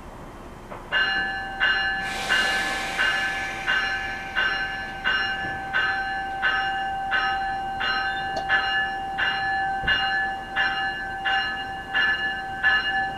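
NJ Transit commuter train's bell ringing steadily, about one ring every 0.7 seconds, as the train gets ready to depart the station. A brief hiss comes in about two seconds in.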